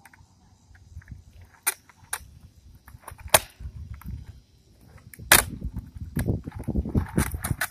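Skateboard on concrete: four sharp cracks of the tail slapping the ground as ollies are popped and landed, the loudest about three and a half and five seconds in, then the wheels rolling with a busy low clatter near the end.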